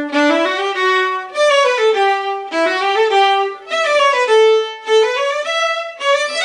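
Two violins playing a scale together, bowed notes stepping up and down in several runs. They play in the first left-hand finger pattern, with the second and third fingers close together.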